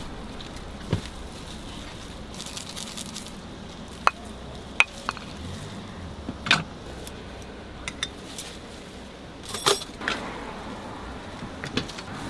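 Kitchen clatter: scattered clinks and knocks of metal noodle bowls, utensils and pots being handled, about a dozen in all, over a steady low hum.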